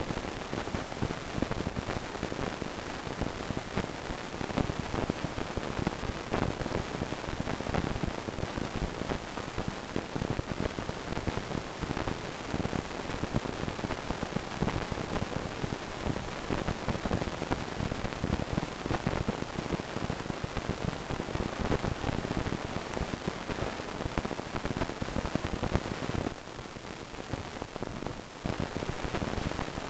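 A white mouse gnawing and chewing a piece of corn close to the microphone: a rapid, continuous crackling crunch, quieter for about two seconds near the end.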